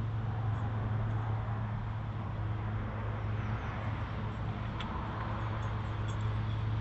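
A steady low hum at a moderate level, with one faint click about five seconds in as hands work a nut onto a motorcycle clutch hub.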